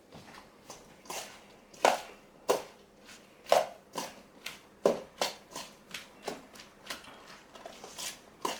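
Coleslaw being mixed in a bowl with a utensil: a series of short, wet knocks and scrapes against the bowl at an uneven pace of about one to two strokes a second.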